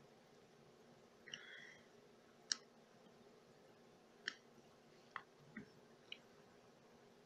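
Faint clicks and taps of a small screwdriver against the small plastic and metal parts of an HO-scale model locomotive being taken apart. About six sharp clicks, the loudest about two and a half seconds in, with a brief scrape just over a second in.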